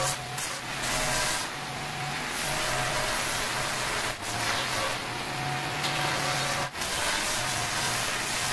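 Handheld electric angle grinder running under load against marble, with a steady motor whine and gritty rasp as it cuts along the slab's edge and sands its top. It drops out briefly twice, about four seconds in and again about six and a half seconds in.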